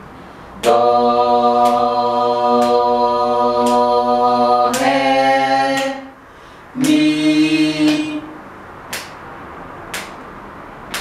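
A small group of voices singing solfège together in long held notes: one note held about four seconds, a shorter one, then after a brief gap another lower note. A steady tick about once a second keeps time throughout, and after about eight seconds only the ticks are left.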